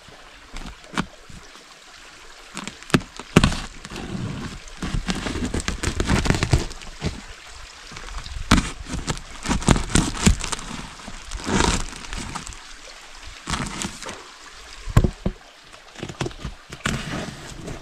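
Water sloshing and splashing, broken by many irregular knocks and splashes.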